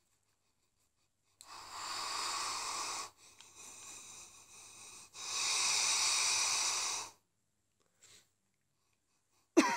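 Deep, noisy breaths into a beer glass while smelling the beer: two long breaths of about two seconds each with a softer breath between them, the second long one louder.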